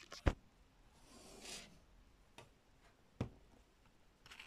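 Scissors snipping through yarn: a few short sharp clicks, the clearest near the start and about three seconds in, with a soft rustle of the crocheted piece being handled in between.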